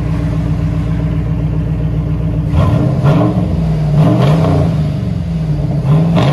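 2005 GMC Yukon Denali's 6.0-litre LS V8 through a true dual exhaust with a Flowmaster Super 10 muffler, idling steadily. About two and a half seconds in, it is blipped on the throttle several times in quick succession, each rev rising and dropping back to idle.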